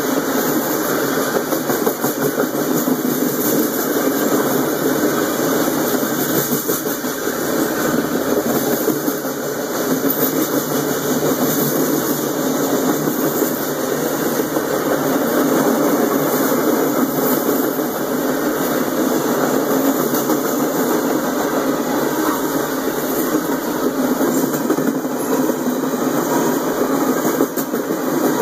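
Freight train cars rolling past close by: steady noise of steel wheels running on the rails.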